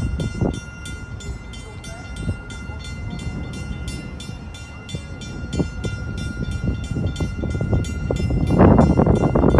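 Drawbridge warning bell, a Western-Cullen-Hayes bell, ringing rapidly at about four strikes a second with a lingering ring between strikes. Under it is a low rumble that grows louder near the end.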